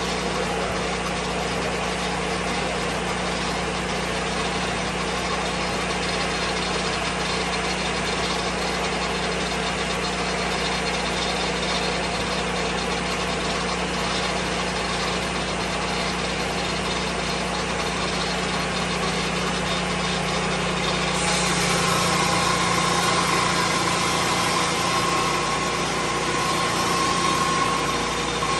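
The engine of a Lucas Mill 10-30 swing blade sawmill running steadily. About three quarters of the way through it grows louder and brighter, and a steady whine sets in.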